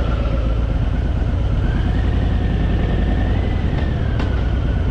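Harley-Davidson Fat Boy's V-twin engine running on the move, a steady low rumble, with a faint whine that rises in pitch about midway and falls back.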